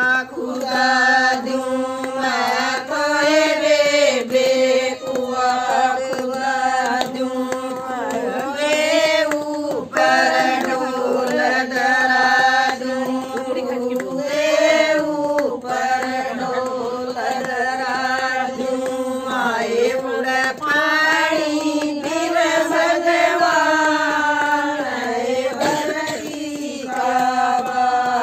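A group of women singing a Haryanvi bhajan, a folk devotional song, with hand claps keeping time.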